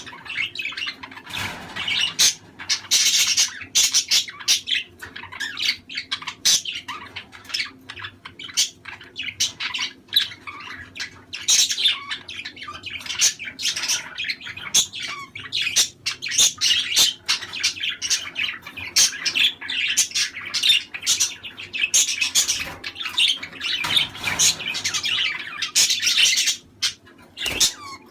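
A flock of budgerigars chattering continuously, a dense run of warbling chirps and squawks.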